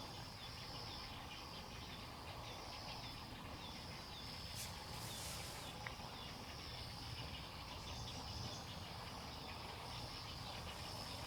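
Outdoor ambience of insects and birds: a continuous high-pitched chirring with many short chirps over a low background rumble. A brief hiss comes about five seconds in.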